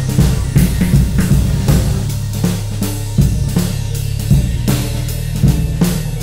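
Instrumental electronic music: a steady drum-kit beat of bass drum, snare and cymbals over a deep bass line.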